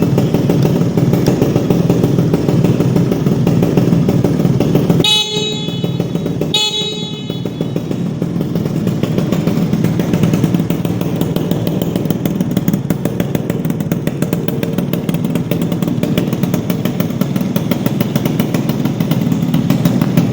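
Yamaha Alfa motorcycle engine idling steadily, with two short horn honks about five and six and a half seconds in.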